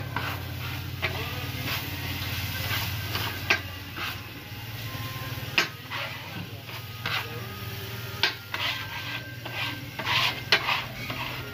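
Metal spatula scraping and clacking across a flat steel tawa griddle in many quick, sharp strokes, with a steady low hum underneath for the first half.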